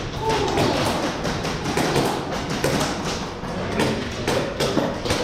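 Airsoft gunfire: a dense, irregular run of sharp pops and BB hits.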